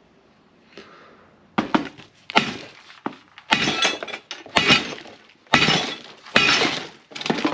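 About eight hard, irregular blows with clattering and cracking: a fibreglass part being bashed and smashed in anger.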